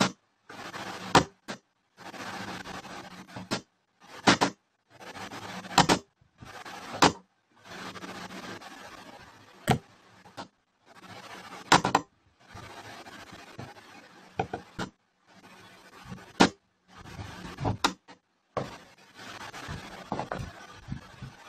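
Hand chisel cutting into charred shou sugi ban wood: sharp knocks come every second or two as the blade is pressed and rocked into the surface to cut hour-marker grooves.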